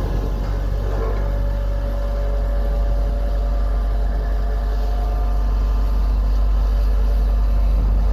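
Heavy road-paving machinery running steadily, a deep diesel rumble that grows slightly louder, with faint whines drifting in pitch.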